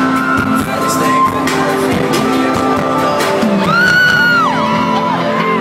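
Live hip-hop music playing loud over an arena PA, recorded from within the crowd, with the audience singing along and cheering. About three and a half seconds in, a high held scream rises above the music for about a second, then bends down.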